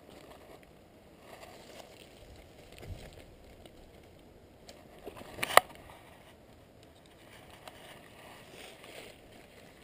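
Footsteps and rustling in dry fallen leaves, with scattered faint crackles and one sharp knock about halfway through, the loudest sound.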